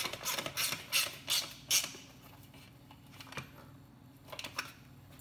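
Socket ratchet clicking as the seat's mounting bolt is tightened down, in quick strokes about four a second. The strokes stop about two seconds in, and a few scattered clicks follow.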